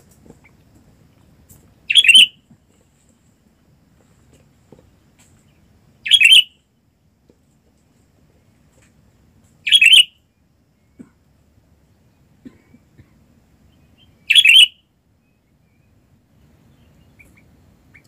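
Four short, loud sooty-headed bulbul calls, spaced about four seconds apart.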